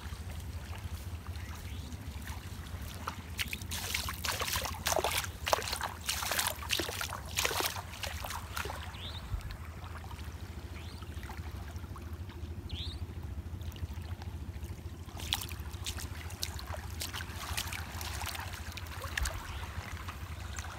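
Sea water washing over the sand at the shoreline, over a steady low rumble. Clusters of sharp crackles and clicks come a few seconds in and again about fifteen seconds in.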